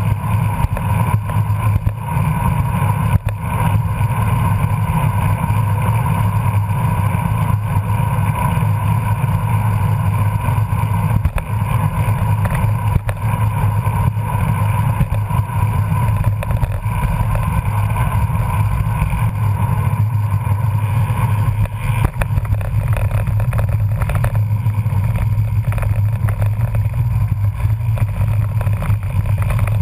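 Steady wind and road rumble on a camera riding along on a bicycle at about 20 mph, with many small knocks from bumps in the pavement.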